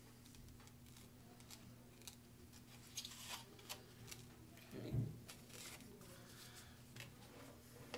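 Quiet handling of graham crackers on a plate: light clicks and scrapes, with one soft thump about five seconds in, over a faint steady low hum.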